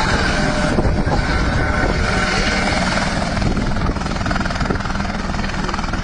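Helicopter running close by: steady, loud rotor and engine noise, a little quieter from about four seconds in.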